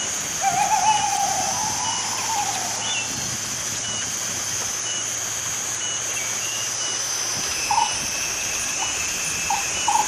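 Buffy fish owl giving a wavering, wailing call that lasts about two seconds, with a few short calls near the end. A steady high insect drone runs underneath.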